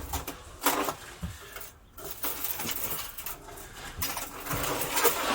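Irregular rustling, clinks and knocks of objects being handled and shifted about, with some light metallic jangling.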